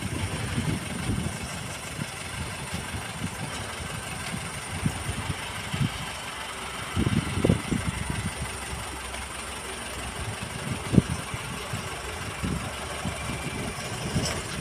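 Transit concrete mixer truck's diesel engine running steadily at idle in the distance, with irregular low thumps over it.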